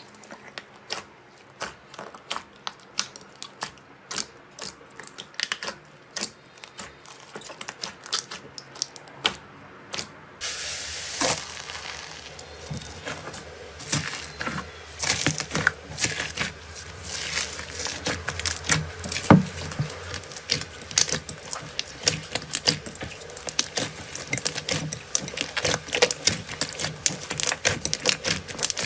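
Slime being pressed and squished by hand, making a run of sharp clicks and pops. About ten seconds in, the sound changes to denser crackling and popping over a steady hiss.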